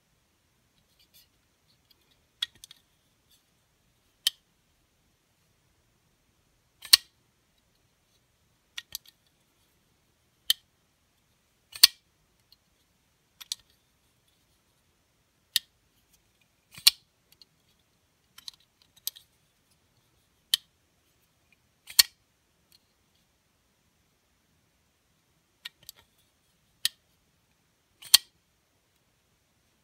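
Rick Barrett Fallout custom flipper knife being flipped open and closed again and again: sharp metallic clicks of the blade snapping open and shutting, a second or two apart, some in quick pairs.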